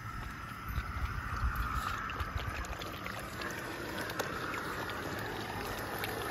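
Water lapping and sloshing in a plastic kiddie pool as puppies drink and paddle at its edge, over a low rumble on the microphone.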